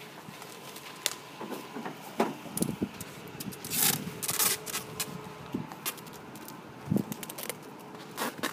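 Irregular rustling, scraping and light knocks from a handheld phone being carried while walking close along batting-cage netting, with a couple of longer brushing bursts about four seconds in.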